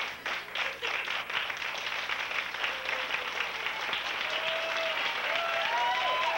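Audience applauding steadily for a children's play, with a few high voices calling out over the clapping in the last couple of seconds.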